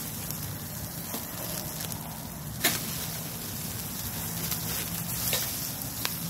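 Steaks sizzling on a stainless-steel camp grill grate over a pinyon juniper wood fire, with a steady hiss broken by a few sharp clicks and crackles, the loudest a little under three seconds in.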